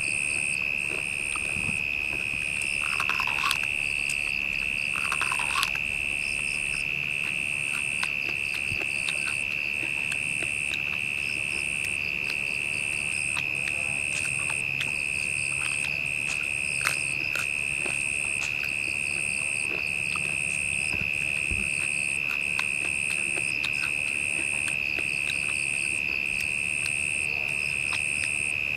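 Rainforest insects droning: one steady high-pitched whine, with a higher chirp pulsing about once a second above it. Two short, lower calls stand out briefly, about 3 and 5 seconds in.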